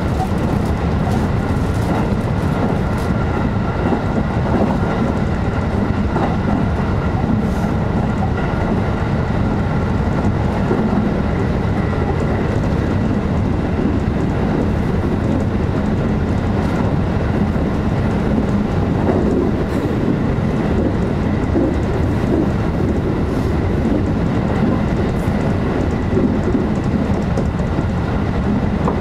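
JR electric train running steadily, heard from inside the front car: a constant rumble of wheels on rail with a thin steady whine over it and a few faint clicks of wheels over rail joints.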